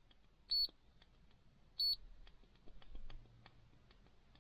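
Two short, high-pitched electronic beeps about a second and a quarter apart from an UltraGauge OBD2 gauge as its buttons are pressed, with faint clicks of the buttons in between.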